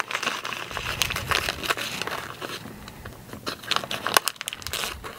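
Small clear plastic bag of screws crinkling as it is handled, with many irregular little crackles.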